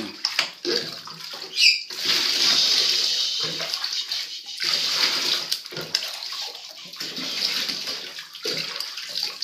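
Bath water running and splashing as a puppy is wet down: a steady rushing hiss with uneven splashes. A brief high squeak rises and falls about two seconds in.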